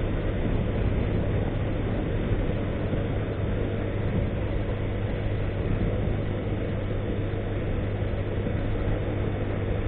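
Honda CG 160 Fan motorcycle's single-cylinder engine running steadily while cruising on the road, with an even rush of wind noise over it.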